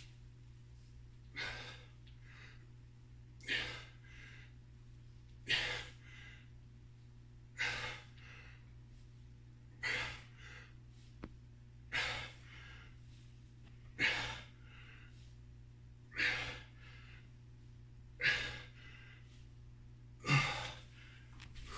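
A man's forceful exhalations during a set of kettlebell reps, one hard breath about every two seconds, over a steady low hum.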